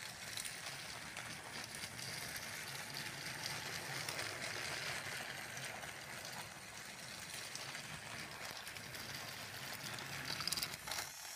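TrackMaster Revolution Mike motorized toy engine running around plastic track, pulling its tender and a ballast truck: a steady whir of the small motor and wheels. A few clicks near the end.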